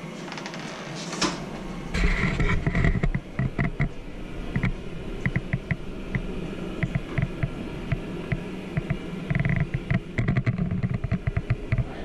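Footsteps on hard floors and handling noise from a handheld camera being carried through the rooms: a run of irregular clicks and thumps over a low rumble.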